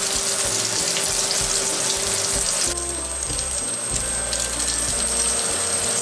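Lamb burger patties sizzling in their fat on a ridged griddle pan: a steady hiss with many small crackles and spits, over background music.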